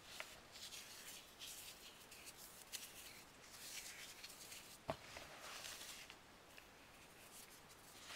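Hands crumbling baked floral foam mixed with cornstarch: a soft, continuous crackling and crunching of small dry crumbs, with one sharper click about five seconds in.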